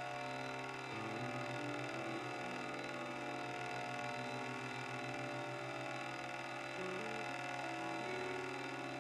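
Slow droning guitar music: steady held low tones with a hum beneath, and higher notes that shift to a new pitch every second or two.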